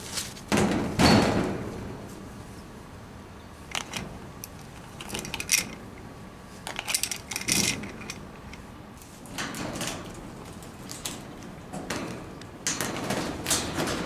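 Blue-and-gold macaw climbing on the aviary's metal bars and rope ring, its beak and feet knocking, scraping and rattling the wire in irregular clusters. The loudest knocks come about a second in, with further rattles spread through the rest.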